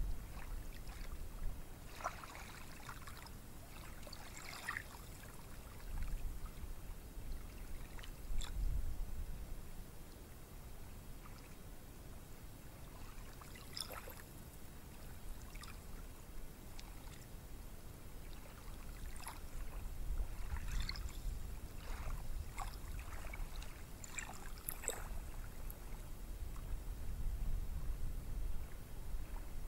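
Surf of low waves washing on a beach, a steady wash of noise under a low rumble that swells and eases, with scattered short, faint high ticks.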